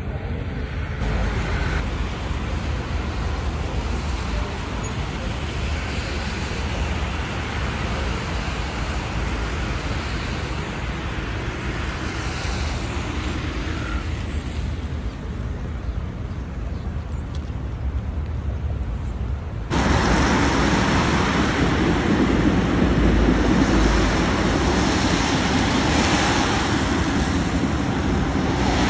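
City street ambience dominated by road traffic noise. It is steady, then turns abruptly louder about twenty seconds in.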